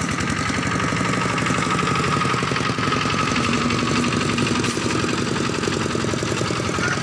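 Engine of a two-wheel walking tractor running steadily, with a fast, even chugging beat.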